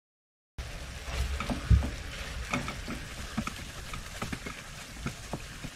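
Ground lamb and diced onion frying in a pan while being stirred with a wooden spoon: a steady sizzle with irregular scrapes and taps of the spoon against the pan, and one louder knock a little over a second in. The sound starts suddenly about half a second in, after a short silence.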